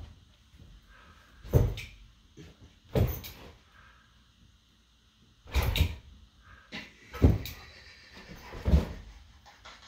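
Two dogs play-wrestling, with five short, sudden bumps and scuffles a second or two apart.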